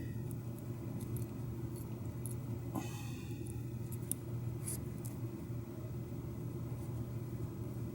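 A few faint, light clicks of small deadbolt parts being handled during reassembly, over a steady low hum.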